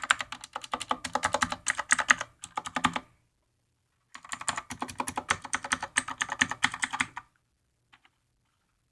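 Redragon K551 mechanical keyboard with clicky blue switches being typed on rapidly, in two bursts of about three seconds each with a pause between, then a couple of single key presses near the end.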